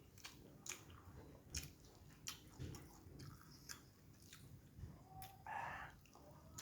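Close-miked eating sounds: wet chewing with a string of quick mouth clicks and smacks. A brief, louder noisy sound comes near the end.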